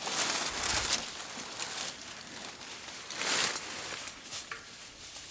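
Rustling and crackling of leaves and branches as someone pushes through a dense rhododendron thicket, in irregular bursts with small snaps and twig clicks.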